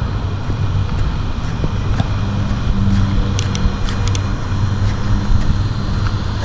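Low, steady engine rumble, as of a motor vehicle running, with a few light clicks and handling knocks on top.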